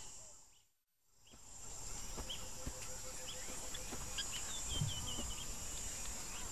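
Wild bush ambience: a steady high insect drone with scattered short bird chirps, including a quick run of little chirps a few seconds in. It drops out briefly about a second in and fades back.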